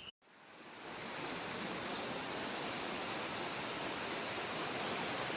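Steady rush of fast-flowing floodwater, fading in just after a brief cut near the start.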